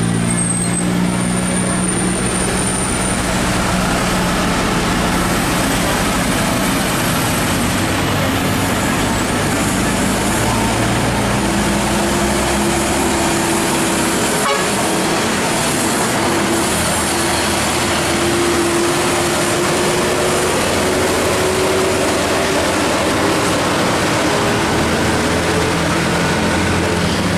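Heavy bus engine running close by amid road traffic noise, with an engine note that rises slowly through the second half.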